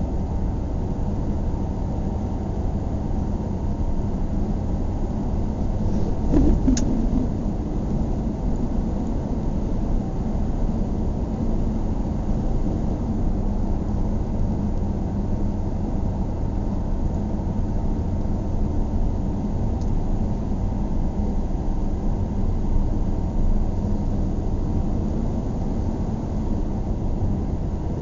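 Steady engine and road rumble heard from inside a moving car's cabin, low and even. A brief louder bump with a click comes about six and a half seconds in.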